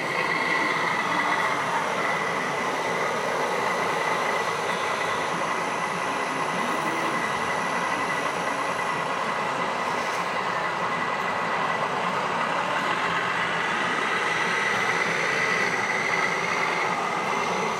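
Radio-controlled model tipper truck driving slowly, a steady high motor-and-gearbox whine over a constant background din.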